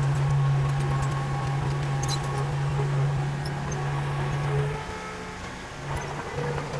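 Heavy diesel machinery engine running with a steady low hum. About five seconds in it eases off for a second or so, then picks up again, with faint clicks over it.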